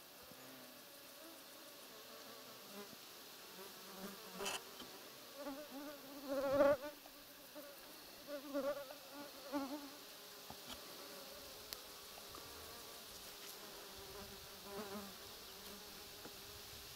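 A flying insect buzzing past the microphone several times, swelling and fading with each pass, loudest about six seconds in. There is a single sharp click about four and a half seconds in.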